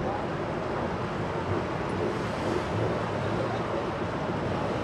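Boat engines running steadily with a low hum, mixed with wind noise on the microphone.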